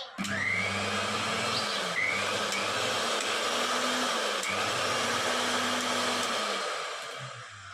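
Kitchen mixer grinder's electric motor switched on, whining up to speed and running loudly and steadily, then winding down near the end. It is running again after its shorted power cord was cut back and reconnected.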